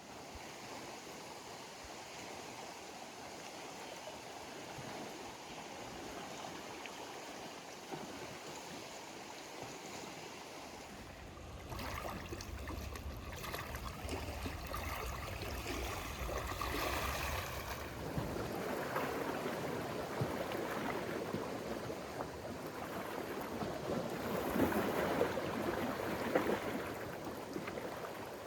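Running water, a steady wash of noise like a stream or small waves, growing louder and rougher in the second half. A low rumble joins it from about twelve to eighteen seconds in.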